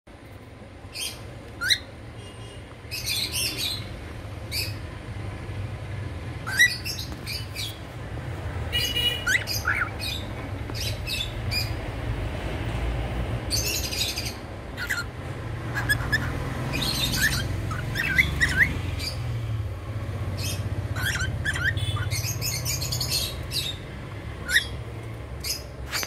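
Cockatiels chirping in short, sharp calls, scattered through the whole stretch and now and then in quick runs of several, with some calls sweeping upward. A steady low hum runs beneath.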